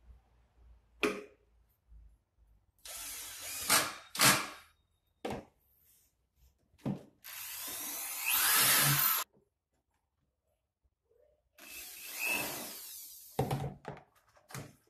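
Corded electric drill run into the side of a white MDF cabinet in three bursts of a second or two each, the loudest near the middle with its motor pitch rising. Short knocks and clatter of handling the cabinet and tools come between the bursts.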